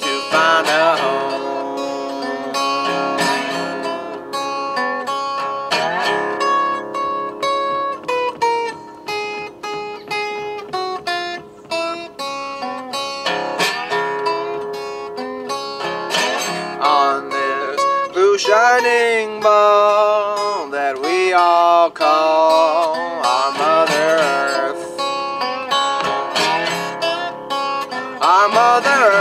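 Resonator guitar picked in a continuous instrumental passage, many sharp plucked notes with some bending, wavering notes in the middle.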